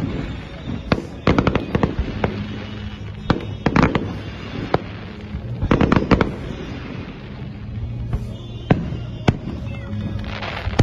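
Aerial fireworks exploding in clusters of rapid sharp bangs, three times, then single bangs a few seconds apart near the end.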